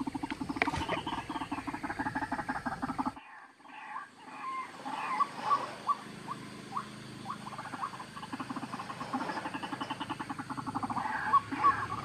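Recorded bird call played through a phone speaker as a hunting lure: a fast, steady run of repeated pulsing notes. It cuts off suddenly about three seconds in. Scattered short chirps follow, and near the end the pulsing call comes back.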